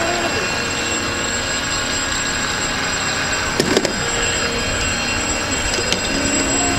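Radio-controlled model boats running on open water, their motors giving a steady high-pitched whine. There is a brief knock about halfway through.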